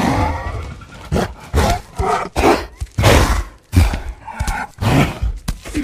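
King Kong's giant-gorilla vocal sound effects: a rapid series of about eight short, loud roars and grunts with brief gaps between them.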